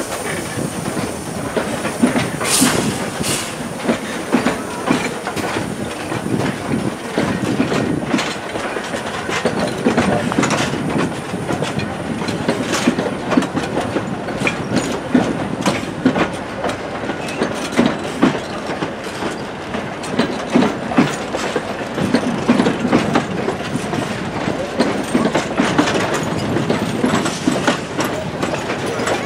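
Train of old wooden passenger carriages rolling past behind a steam tank locomotive, the wheels clattering over rail joints and points in irregular clicks and knocks.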